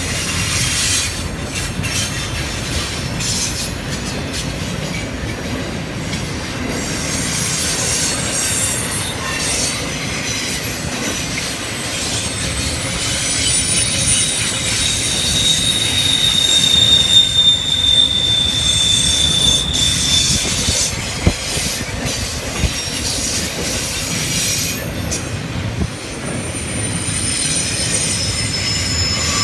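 Intermodal freight train rolling past, its flatcars loaded with highway trailers and containers: a steady rumble and clatter of steel wheels on rail with a few sharp clicks. Thin, high wheel squeals come and go, one holding for several seconds about halfway through and more near the end.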